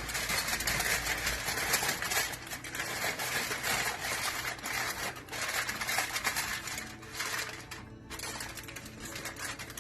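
Aluminium foil crinkling and crackling as it is folded and pressed around a fish, a dense run of crackles that drops off briefly about eight seconds in.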